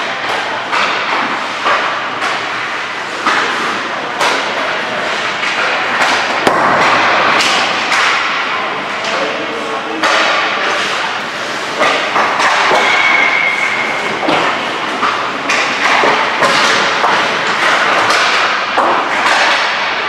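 Ice hockey skate on a rink: skate blades scraping and carving the ice, with frequent sharp clacks and thuds of sticks and pucks, some striking the boards.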